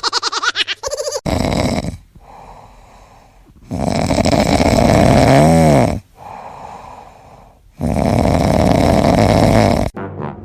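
Loud snoring: three long snores a few seconds apart, with quieter breaths between them.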